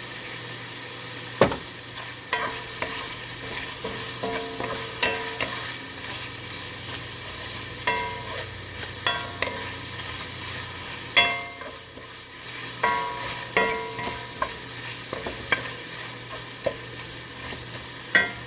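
Minced pork sizzling in a frying pan while a metal utensil stirs it, knocking against the pan in clusters of ringing clinks.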